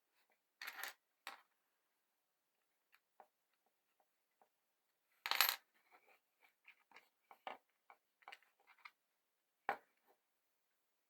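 Small metal hardware clinking and clattering on a hard surface as the saw is assembled: scattered light clicks and ticks, with a short rattle about half a second in and the loudest clatter about five seconds in.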